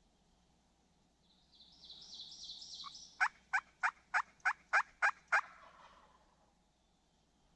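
A series of eight sharp turkey yelps, evenly spaced at about three a second, coming in loud about three seconds in. A high, rapid twittering runs for a couple of seconds just before them.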